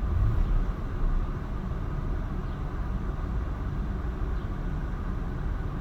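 1996 Lexus LS400's V8 idling, heard from inside the cabin with the AC blower fan running, a steady low hum and air rush.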